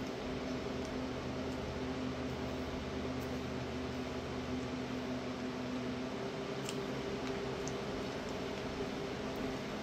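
Steady hum and hiss of a running appliance, with a couple of faint ticks near the end.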